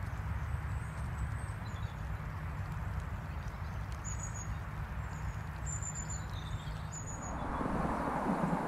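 Steady outdoor background with a low rumble, and small birds giving short high chirps several times, most of them between about four and seven seconds in. Near the end the background changes to a louder, brighter hiss.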